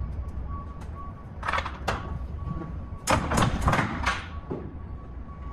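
Metal rear swing door of a semi-trailer being swung shut: a couple of short clanks and rattles, then a louder cluster of metal bangs about three seconds in.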